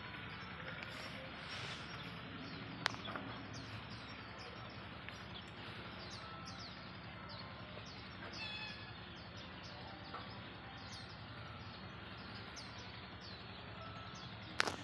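Small birds chirping over and over in short, high, falling chirps, over a steady low hum. A sharp click about three seconds in and another near the end.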